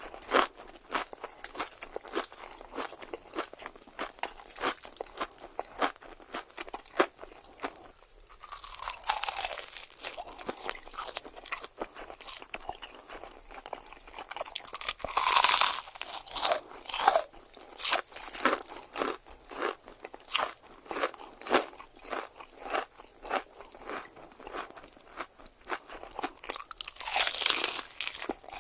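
Close-miked chewing of crunchy food: a quick, steady run of crisp crunches, with louder bites about a third of the way in, around halfway and near the end.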